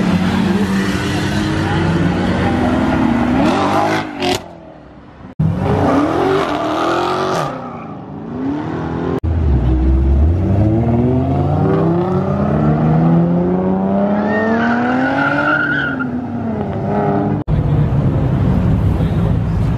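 Sports cars accelerating hard one after another, engines revving and rising in pitch as they pull through the gears. A Nissan GT-R makes a long steady pull from about ten seconds in. The sound comes in short clips that break off abruptly.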